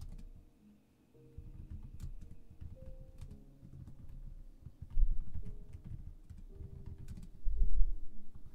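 Soft scattered clicks and handling noise, with two dull low thumps about five and seven and a half seconds in.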